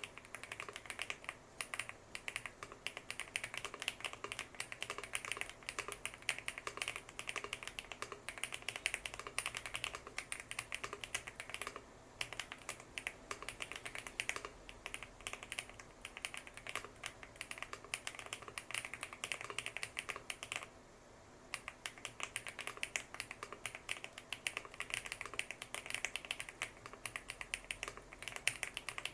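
Fast, continuous typing on a Lucky65 V2 aluminium gasket-mount mechanical keyboard with HMX Purple linear switches and polycarbonate Cherry-profile keycaps, tape-modded on an FR4 plate. The keystrokes break off briefly about two-thirds of the way through.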